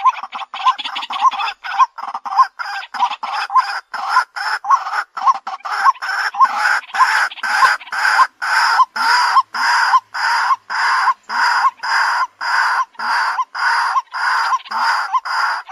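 White-breasted waterhen calling its repeated harsh "kwak" note in a long, even series, about three calls a second at first, easing to about two a second.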